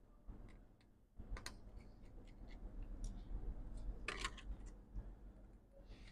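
Precision screwdriver working the small screws inside an opened MacBook Pro, giving faint, irregular clicks and ticks of metal on metal. The loudest click comes about four seconds in.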